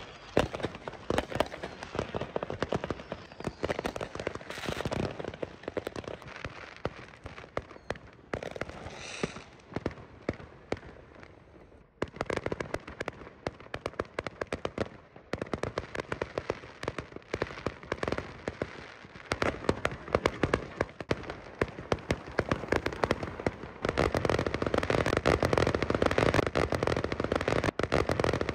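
Aerial fireworks going off in rapid succession: many sharp bangs and crackling bursts, with a short lull about twelve seconds in. Near the end it turns into a dense, unbroken barrage of crackling, the finale of the show.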